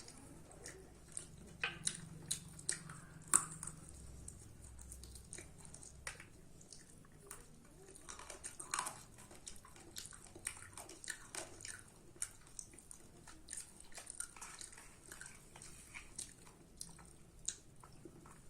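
A person chewing and eating rice and chicken curry: irregular mouth clicks and smacks, with the sharpest one about three seconds in.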